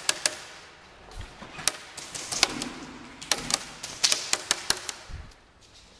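Airsoft guns firing: scattered sharp cracks and short rapid bursts, clustered in the middle, with quieter gaps around them.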